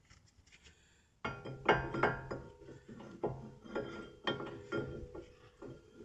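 Metal clinks and scrapes as the steel brake caliper bracket is fitted against the front brake rotor, starting about a second in and repeating every half second or so, with the rotor ringing after the knocks.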